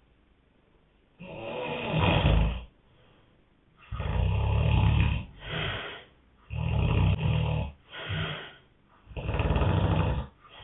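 A man snoring in his sleep: four loud snores about every three seconds, starting about a second in. Each of the last three is followed by a shorter, weaker one.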